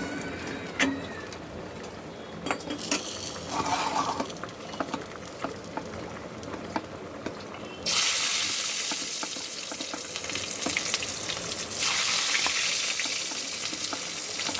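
Hot oil sizzling in a frying pan, with light clicks of a utensil. The sizzle jumps suddenly louder about eight seconds in, then eases off, and rises again near twelve seconds.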